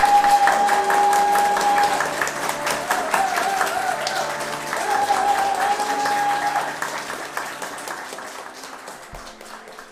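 Audience applauding while the live folk band plays on, a long held, wavering melody line over steady lower notes. The music stops about seven seconds in and the clapping dies away.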